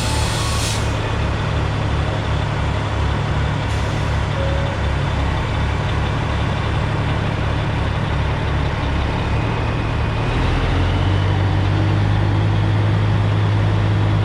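Heavy diesel engine idling with an even, pulsing rumble, which grows louder and steadier about ten seconds in. A short hiss of air near the start.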